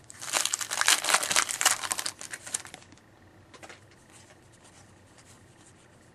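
A trading-card pack wrapper being torn open and crinkled in the hands, a dense crackling for about three seconds that then stops. A few faint ticks follow as the cards are handled.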